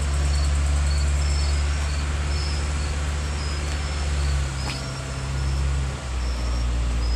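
A crane's engine running with a steady low hum, dropping in pitch about four and a half seconds in and shifting again near six seconds, with crickets chirping.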